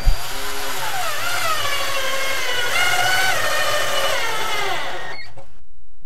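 Cordless drill driving a self-drilling drywall screw into a plywood board. Its motor whine shifts in pitch as the screw goes in, then stops near the end.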